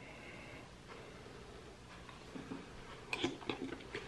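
Faint eating sounds: a person chewing a mouthful of food, with a cluster of small wet clicks and smacks about three seconds in after a quiet start.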